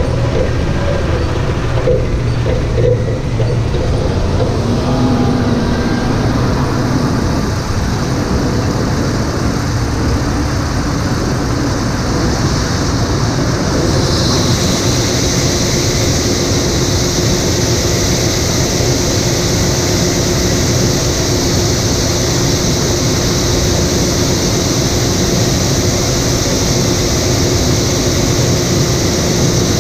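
John Deere S670 combine running steadily while harvesting corn: a constant low machine drone. About halfway through, a steady high hiss and a faint hum join in and hold.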